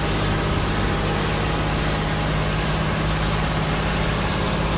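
Wooden passenger boat's engine running at a steady, unchanging drone while under way, over a constant rush of water and wind.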